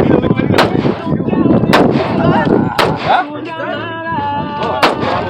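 Firearm shots on a shooting range: four separate sharp cracks, about a second apart for the first three, then a longer gap before the fourth.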